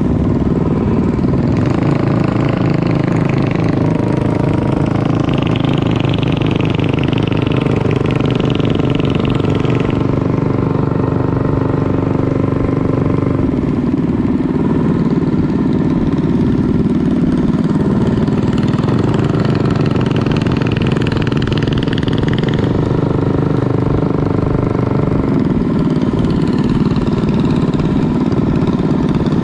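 Predator 212 single-cylinder four-stroke minibike engine running under way, with a steady note that rises and falls in pitch several times.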